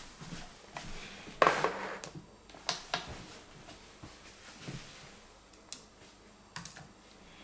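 Handling noises as a digital kitchen scale with a glass platform is set down on a glass-topped table. The loudest is a short scraping clatter about a second and a half in, followed by a few separate light clicks and taps as the power bank is picked up.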